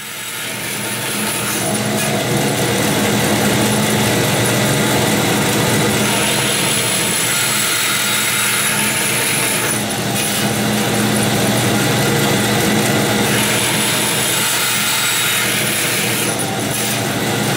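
Vertical bandsaw cutting through aluminum bar stock: a steady motor hum under the hiss of the blade biting the metal. The cutting noise eases briefly about halfway through and again near the end.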